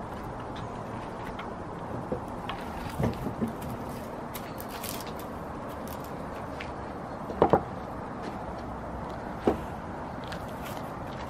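Golden retriever chewing on a wooden stick: scattered sharp snaps and clicks of teeth on wood, the loudest a quick double crack about seven and a half seconds in and another about two seconds later, over a steady background noise.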